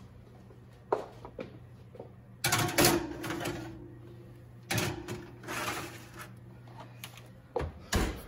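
Metal baking trays of cookie dough scraping and clattering as they slide onto the wire racks of a wall oven, in two main bouts, then a thud near the end as the oven door shuts. A steady low hum runs underneath.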